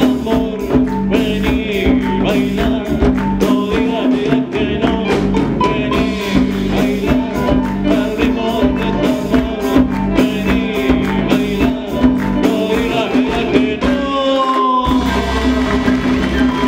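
Live band with candombe drums playing a candombe: fast, dense hand-drumming under the band's melody. About fourteen seconds in the music changes abruptly, the drums drop out for a moment and a new passage begins.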